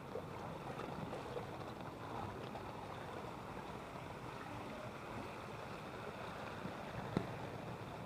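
Floodwater sloshing and washing around as someone wades through it, a steady watery noise, with one short sharp click about seven seconds in.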